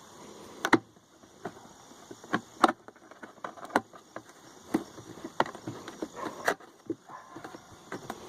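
Irregular clicks and knocks of intake kit parts being handled while a rubber grommet is pushed into place, with the sharpest knocks near the start.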